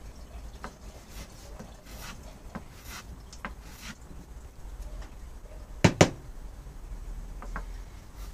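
A small hand tool rubbing along a pine board in short strokes, about two a second. About six seconds in come two sharp knocks in quick succession.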